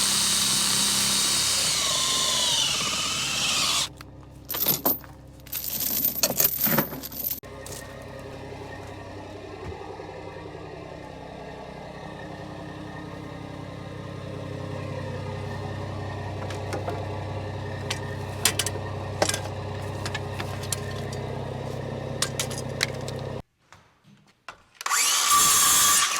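Diesel engine running steadily for most of the stretch. A loud hiss comes at the start and again near the end, with a run of clicks and knocks about five seconds in.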